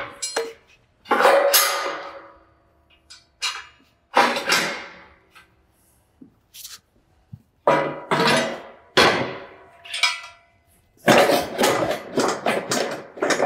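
Ironcraft steel pallet fork blades clanking against the fork frame as they are hung on and set in place: several separate metal clanks, each ringing briefly.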